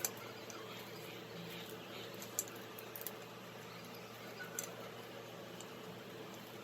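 A few light, sharp clicks and taps of small parts and tools being handled, over a steady low background hum.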